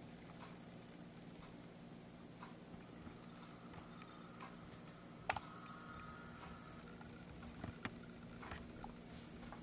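Quiet room tone: a faint steady high-pitched whine over a low hum, with a few faint clicks.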